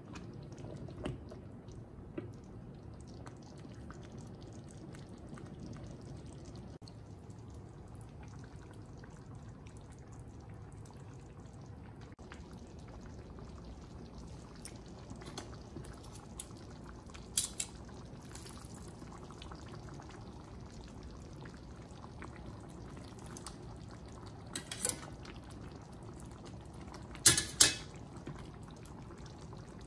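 Cooking in a pot: thick beef and tomato sauce simmering with a low steady bubbling while it is stirred, with occasional sharp metal clinks. Two loud clanks close together near the end, as a stainless colander knocks against the pot while spaghetti is tipped in.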